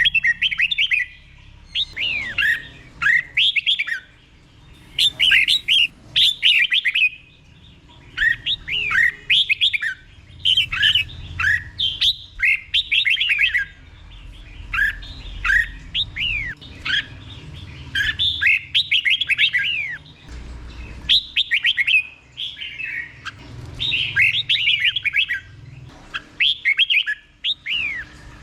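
Red-whiskered bulbul singing its doubled song, each phrase repeated. The phrases are short runs of quick, downward-slurred whistled notes, coming about every two seconds with brief pauses between.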